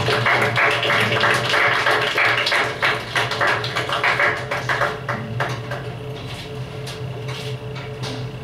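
Audience clapping, dense for about the first five seconds and then thinning out, over a steady low hum.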